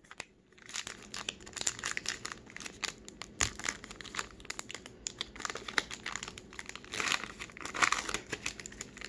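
Foil wrapper of a trading-card pack being torn open and crinkled by hand: a dense run of crackles starting just under a second in, loudest near the end.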